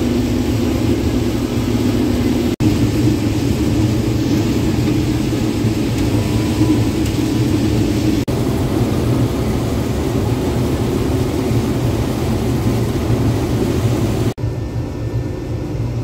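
Case IH 2388 combine running under load while shelling corn, heard from inside the cab as a steady engine and threshing hum. The sound breaks off for an instant three times and is a little quieter over the last couple of seconds.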